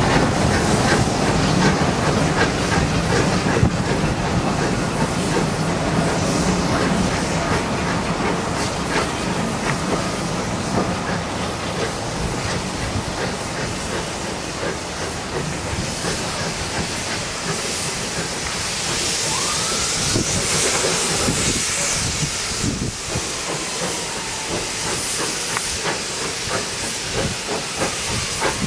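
Lancashire & Yorkshire Railway Barton Wright 0-6-0 steam locomotive working a train of vintage carriages away from the platform: a steady hiss of steam over the rumble of wheels on the rails. The rumble is strongest in the first half and the hiss in the second.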